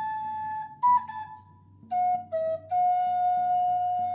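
Slow instrumental music: a melody of long held notes, with a brief higher note about a second in, then two lower notes and a long held note, over a soft, low repeating accompaniment.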